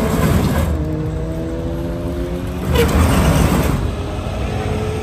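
Heavy vehicle engines running steadily amid freeway traffic, with two louder surges of noise: one at the start and one about three seconds in.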